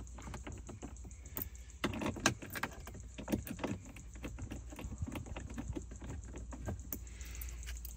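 Hand ratcheting driver clicking in quick, uneven runs as it tightens the screws of a plastic dashboard panel, with a couple of louder knocks about two seconds in.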